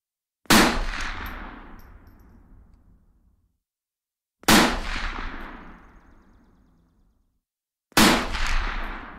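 Three single rifle shots, about three and a half to four seconds apart, each a sharp report followed by a long rolling echo that fades away over two to three seconds.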